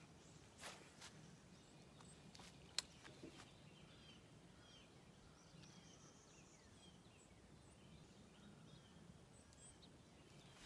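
Near silence, with faint bird chirps and a couple of soft sharp clicks.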